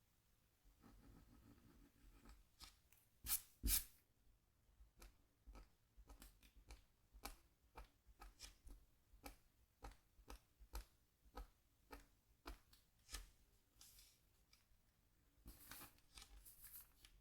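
A scratch tool scraping the coating off a scratchboard in short, crisp strokes, about two a second. Two louder strokes come a few seconds in, and a quicker run of scratching comes near the end.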